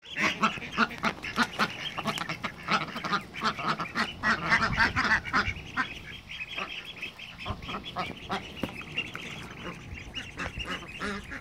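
A flock of domestic ducks quacking, with many short overlapping calls, busiest in the first half and thinning out after about six seconds.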